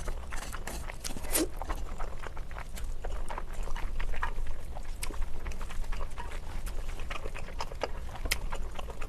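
Close-miked eating of spicy stir-fried noodles: irregular wet chewing, smacking and slurping clicks.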